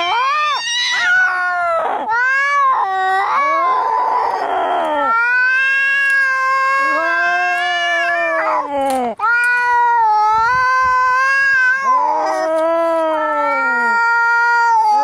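Angry cats caterwauling: long, drawn-out yowls that bend up and down in pitch and follow one after another with little pause. There is a harsher, noisier stretch about four seconds in.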